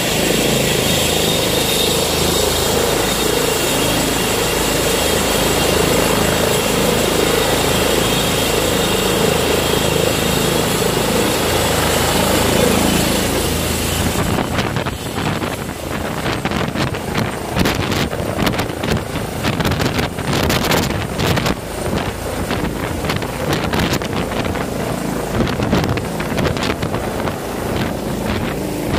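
Air ambulance helicopter running close by: a steady turbine whine over the rotor noise. About halfway through, this gives way to the rotor downwash of its takeoff, blowing gusty wind across the microphone.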